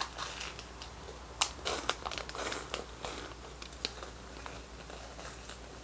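A plastic snack wrapper crinkling while a snack is bitten and chewed, with soft crunching and a scatter of sharp crackles, the loudest about one and a half seconds in.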